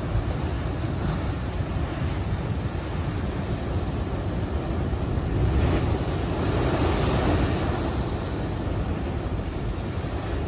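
Heavy ocean surf breaking against a sea wall and washing across a rock pool, with wind buffeting the microphone. A big wave crashes over the wall about six seconds in, the loudest moment, and its wash fades over the next couple of seconds.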